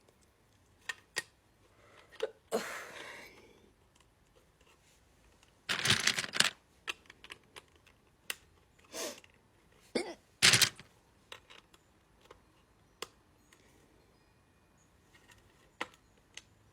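A person hiccupping again and again at uneven intervals, each hiccup a short sharp gulp, with a longer breathy rush of air about two and a half seconds in.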